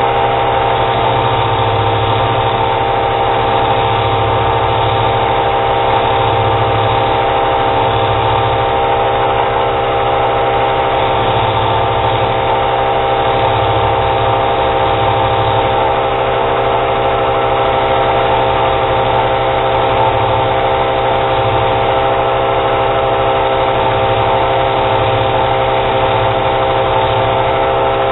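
Wilton square-wheel belt grinder running at steady speed with a worn 120-grit belt, a steady hum made of several held pitches, as hardened knife blades are held to the belt to clean off heat-treat scale and quench oil.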